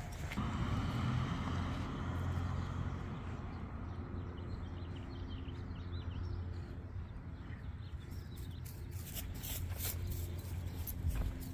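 Street ambience: a vehicle passing on the road with a steady low traffic rumble, louder in the first few seconds and then easing off. Near the end comes a quick run of light clicks and jingling, typical of a dog's leash clip and harness hardware.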